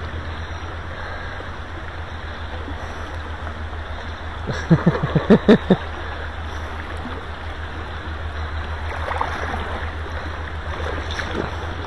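River water flowing steadily, an even rushing, with a brief cluster of short louder sounds about five seconds in.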